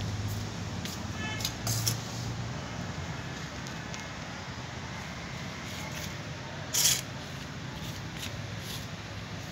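Steady low hum and background hiss, broken by a few short hissing bursts; the loudest is a brief, sharp hiss about seven seconds in.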